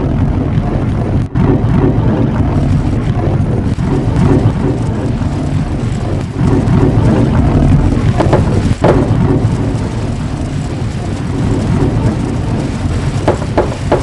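Marbles rolling along a long marble run track: a continuous loud rumble with scattered sharp clicks and clacks as they hit the track.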